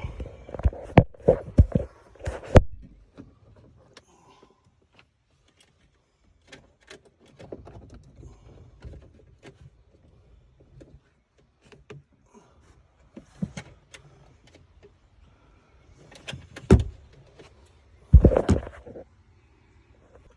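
Intermittent sharp clicks and knocks of plastic and metal parts being handled as the power liftgate arm and its wiring are worked loose. There is a quick run of clicks at the start, then faint ticks and rustling, and louder knocks and clatter near the end.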